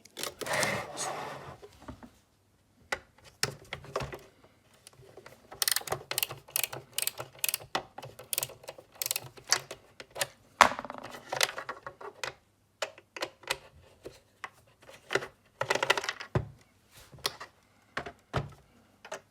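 Irregular clicks, taps and scrapes of a Torx screwdriver and plastic case parts being handled while the front panel of an oscilloscope is unscrewed and worked loose, with a few longer scraping spells.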